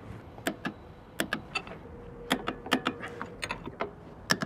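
Click-type torque wrench ratcheting on the axle-bracket bolts as they are tightened to about 80 foot-pounds, with a run of sharp, unevenly spaced clicks.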